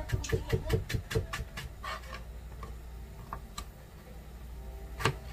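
Kitchen knife chopping vegetables on a plastic cutting board. It starts as a quick, even run of taps, about six a second, for the first second, then slows to scattered taps, with one louder knock near the end.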